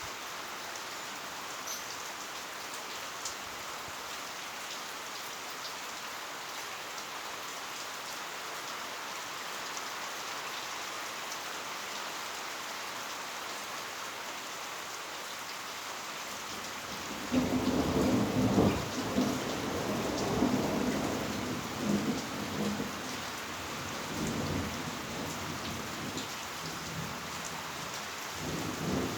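Heavy rain falling steadily. A little past halfway a long rumble of thunder breaks in, its loudest stretch first, then coming back in weaker waves.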